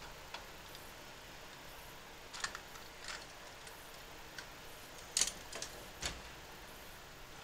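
A few scattered light clicks and scrapes as the insulation is cut and stripped from the end of an electrical wire with a knife, the loudest about five seconds in.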